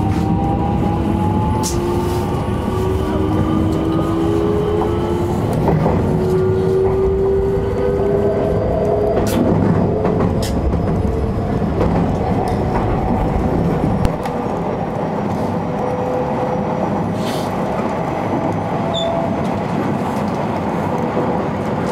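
Electric train pulling away and accelerating: the traction motors' whine climbs steadily in pitch over the running rumble of wheels on rail, with a few sharp clicks. About 14 seconds in the power drops off and the train runs on more quietly.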